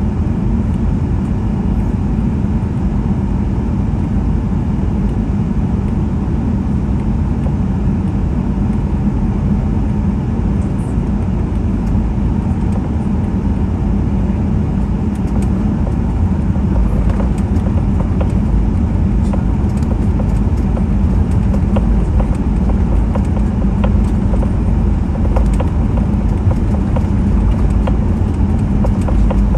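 Cabin noise inside a Boeing 737-800 taxiing after landing: a steady low rumble from its CFM56-7B engines and the rolling airframe, growing slightly louder about twenty seconds in, with a few faint clicks.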